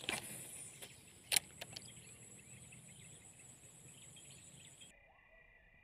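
A fishing rod whooshing through a cast at the start, then a sharp click about a second later. Steady high-pitched insect buzzing runs underneath until it cuts off abruptly near the end, leaving frogs and insects chirping.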